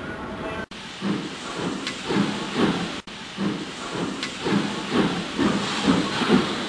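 Model steam locomotive chuffing with a steady hiss, the chuffs coming about two to three a second and quickening slightly as it runs.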